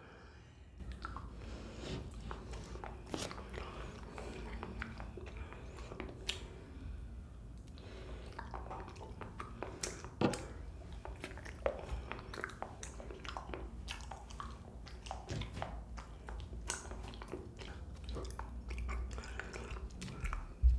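Close-miked chewing of soft, chewy green-grape ball jelly, with scattered sharp mouth clicks over a low steady rumble.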